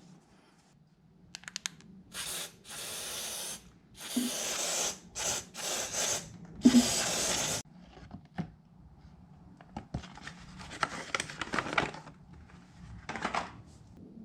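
A spray hissing in several short bursts of under a second to about a second and a half each, stopping abruptly each time. A few seconds later comes a stretch of rubbing and scrubbing.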